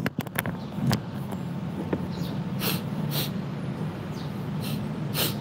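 Several short breathy sniffs over a steady low hum.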